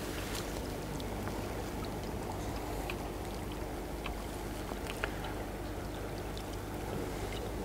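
Shallow river water running steadily, a continuous rushing wash, with a few faint scattered ticks over it.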